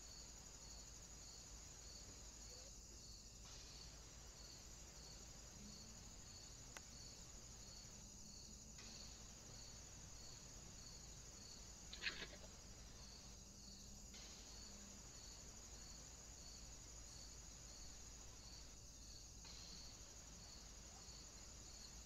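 Near silence with a faint, steady high-pitched chirring of crickets, pulsing evenly about twice a second. A single short click sounds about halfway through.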